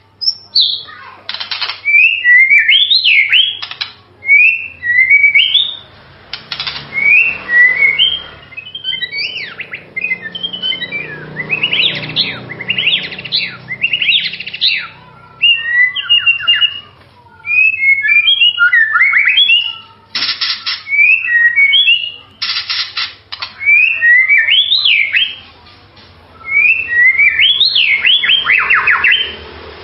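White-rumped shama (murai batu) singing loudly: phrases of whistled notes that glide up and down, mixed with fast trills, in bursts of a second or three with short pauses between.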